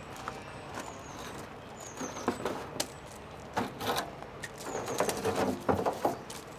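Scratchy rubbing and scraping, with a few clicks, as a rubber window seal is worked out of a VW T25 van's window frame. It grows louder and busier over the last few seconds. Small birds chirp faintly in the background.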